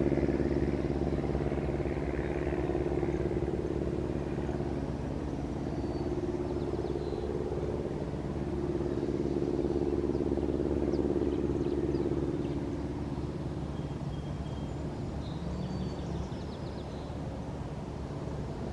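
Steady low engine hum, swelling near the start and again about halfway through before fading, with a few faint high chirps in the background.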